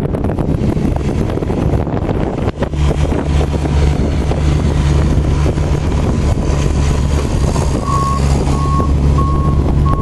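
Wind buffeting the microphone, then from about three seconds in a heavy vehicle's engine running with a steady low drone. Near the end a vehicle backup alarm starts beeping, about two beeps a second.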